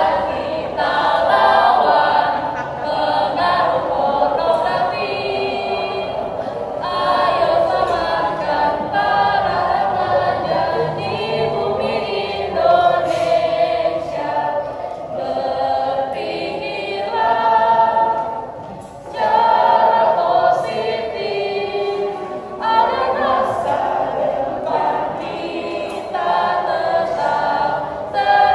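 A group of young teenagers singing a song together, in sung phrases with short breaks between them.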